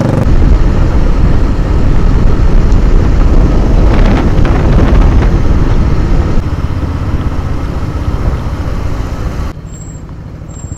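Motorcycle running on the road, with heavy wind rush over the helmet-mounted microphone. The noise drops in two steps, about six seconds in and again near the end.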